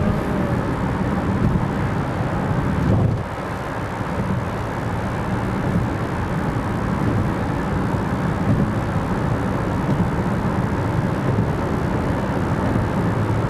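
Steady road and tyre noise with engine hum, heard from inside a car moving at highway speed, with a brief drop in loudness about three seconds in.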